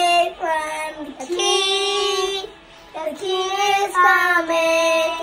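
A young boy singing, holding long notes in several phrases with short breaks between them, imitating a rock band's singer.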